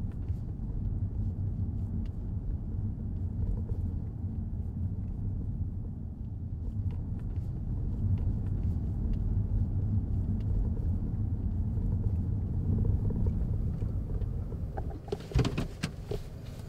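Steady low rumble of a car heard from inside the cabin as it drives slowly up to a stop. Near the end come a few short clicks and knocks.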